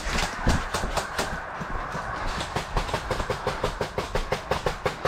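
Airsoft gun firing a long full-auto string of sharp clicks at about seven shots a second, rising and falling slightly in loudness.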